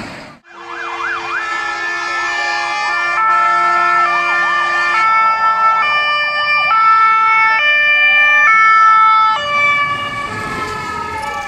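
Fire engine sirens sounding: a fast yelping wail together with a multi-tone horn stepping between pitches about once a second. The sound grows loudest as a fire engine with blue lights passes close by, and a slower rising and falling wail follows near the end.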